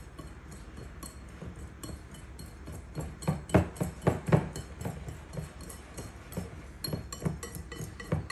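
Wire balloon whisk stirring dry flour, sugar and spices in a glass mixing bowl, its wires clinking and tapping against the glass several times a second, loudest about three to four and a half seconds in.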